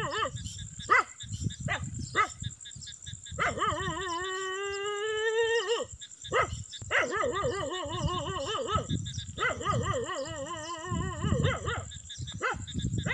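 A dog barking in short sharp yelps, then three long drawn-out cries of about two seconds each, the last two wavering in pitch.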